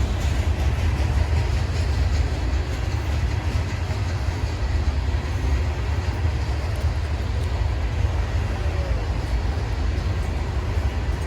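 Norfolk Southern freight train rolling past, a steady low rumble with no horn.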